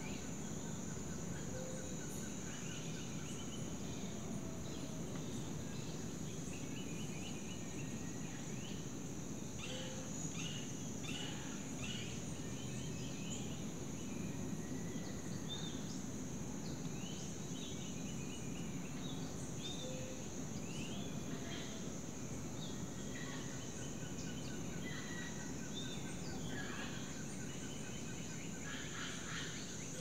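Rainforest ambience: a steady high-pitched insect drone with many short chirps and calls scattered through it, over low steady background noise.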